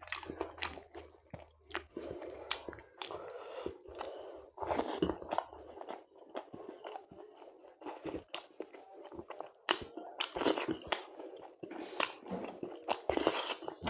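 Close-up chewing with many irregular crisp crunches, as of raw onion being eaten with chicken curry and luchi.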